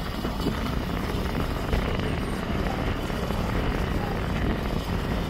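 Steady low rumble of a brush truck's engine running as it creeps along the burn line.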